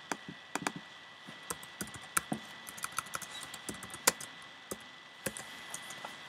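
Typing on a computer keyboard: a run of irregular key clicks as a short search phrase is typed. A faint steady high tone hums underneath.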